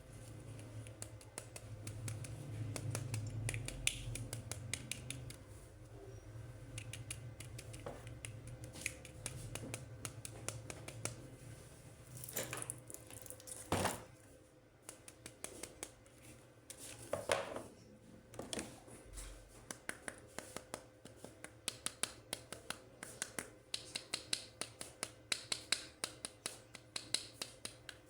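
Toy packaging being handled and opened by hand: scraping and rustling with scattered clicks, then from about two-thirds of the way in a quick run of small sharp clicks, several a second.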